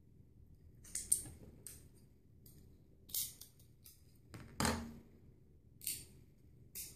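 Steamed crab being cracked open and eaten close to the microphone: a series of short crunches and clicks, the loudest about four and a half seconds in.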